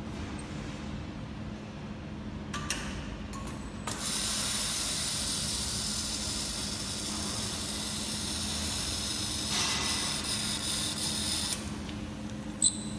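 Welding torch of a hollow pipe making machine running on argon: a steady hiss starts about four seconds in and cuts off suddenly near the end, over a constant machine hum, with a few clicks before and after. The operator judges the welding current too low, so the seam does not fuse.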